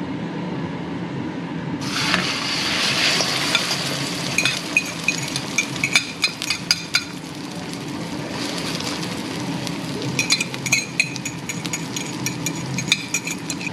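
Egg and smashed eggplant frying in a hot pan on medium-high heat. A sizzle starts suddenly about two seconds in and keeps going, with sharp clinks and scrapes of a utensil against the pan, busiest in the middle and again near the end.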